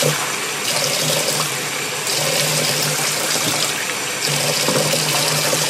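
Water running steadily from a bathtub faucet into the tub.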